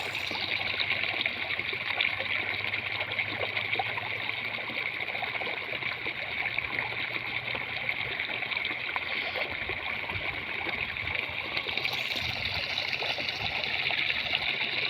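Steady rushing, trickling water.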